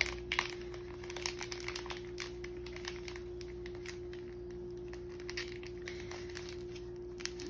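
Plastic wrap and a plastic piping bag crinkling as the wrapped frosting is worked into the bag: a scatter of small crackles, thickest in the first second or two and sparser after, over a steady low hum.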